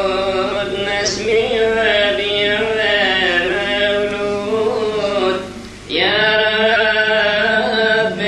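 A Coptic monk's solo male voice chanting a Kiahk praise hymn in long, wavering held notes. The chant breaks off briefly about five and a half seconds in, as for a breath, then picks up again.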